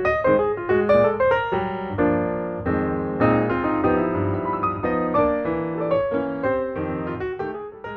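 Background piano music: quick runs of notes, then held chords in the middle, then quicker notes again.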